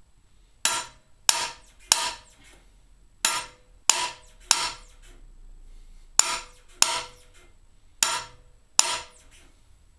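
Hammer tapping a driving rod and bearing insertion tool to drive a cam bearing into an International Harvester C-264 engine block: ten sharp metallic strikes in groups of two and three, each with a short ring. The bearing is being driven home until it sits flush.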